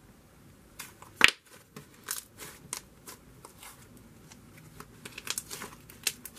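Thick cloud-cream slime being squished, folded and stretched by hand, giving irregular soft crackles and clicks, with one louder click about a second in.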